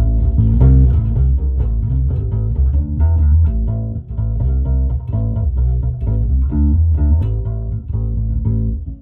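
Electric bass guitar played through a Hartke HD150 bass combo amplifier: a quick run of plucked notes with a strong low end. The playing dips briefly about four seconds in and breaks off for a moment near the end.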